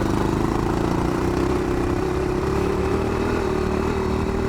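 1981 Yamaha XT500's air-cooled single-cylinder four-stroke engine running at full throttle, its pitch creeping up slowly as the bike pulls.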